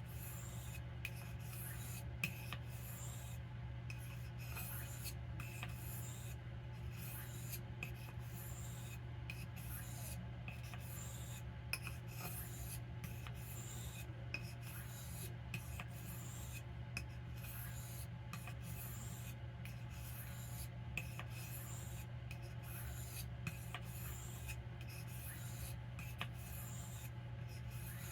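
Knife blade stroked across an Arkansas sharpening stone, a repeated gritty scrape about once a second, over a steady low hum.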